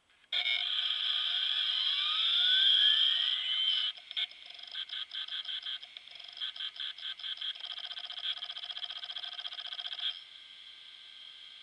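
Iomega Jaz drive making weird noises: it starts with a whine that rises in pitch for about three seconds as the disk spins up, then breaks into fast, irregular clicking and chattering for about six seconds before settling to a quieter steady whir with a few ticks.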